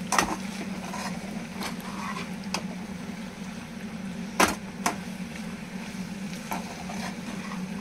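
Spatula stirring macaroni in a non-stick kadai, scraping and knocking against the pan about eight times, the loudest knock about four and a half seconds in, over a steady low hum.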